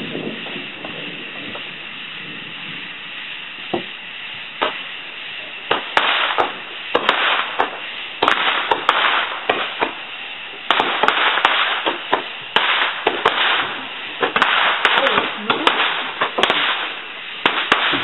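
Roman candles firing: a faint hiss at first, then from about six seconds in a long run of loud hissing spurts, each ending in a sharp pop or crack.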